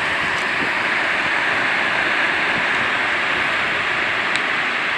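Surf breaking on a sandy beach, heard as a steady wash of noise.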